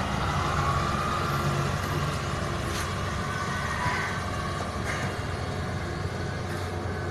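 Steady low mechanical hum with background noise, with a few faint clicks partway through.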